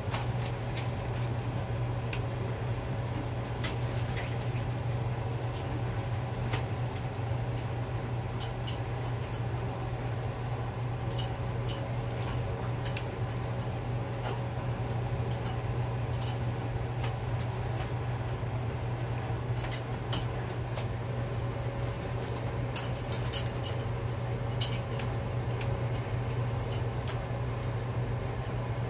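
A macaw bathing in a metal water bowl: scattered splashes and clinks of the bowl at irregular moments, over a steady low hum.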